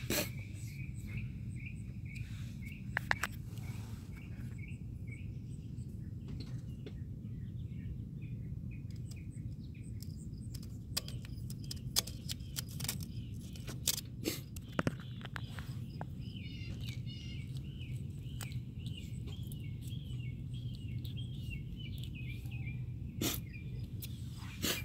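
Outdoor ambience: insects trilling steadily at first and a bird chirping repeatedly over the last several seconds, over a steady low rumble. Scattered sharp clicks and rustles come from the vinyl wrap being cut with a utility knife and pressed onto the brake caliper by hand.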